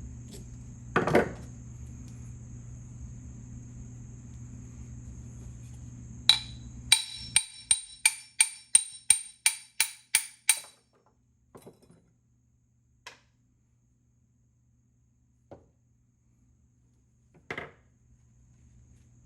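A hammer tapping on metal: about ten quick ringing strikes, two to three a second, then a few lighter knocks. Before the strikes a steady low hum runs and cuts off abruptly.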